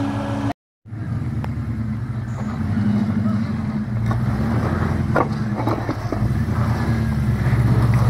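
Nissan Patrol GU 4x4's engine running under load as it crawls up a rock step, with a few short knocks over it. The sound drops out completely for about half a second near the start, then the engine picks up again.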